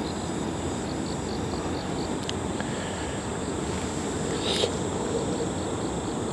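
Steady low rumble of road traffic going by. Faint high chirping, about four pips a second, comes and goes over it, with a brief rustle about four and a half seconds in.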